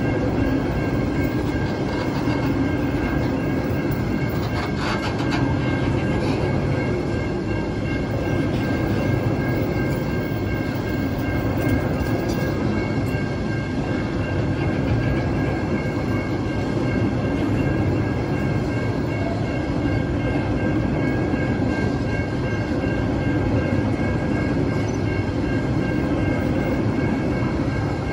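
Empty log wagons of a freight train rolling past at steady speed, a continuous rumble of steel wheels on rail with a clickety-clack over the joints. A few thin steady high tones run above the rumble.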